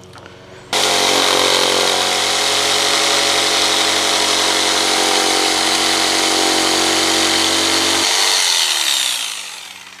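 Corded jigsaw cutting an outlet opening out of a wooden panel, starting from a drilled pilot hole. It starts abruptly under a second in and runs steadily, then is switched off about eight seconds in, its motor winding down.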